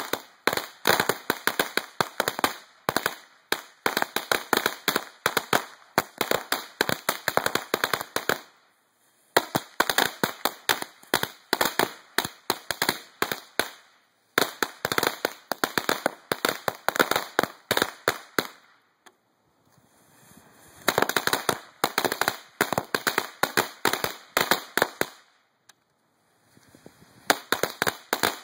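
Strings of Cutting Edge ladyfinger firecrackers going off in rapid, irregular cracks. The cracks come in runs of about five seconds, with brief pauses between the runs.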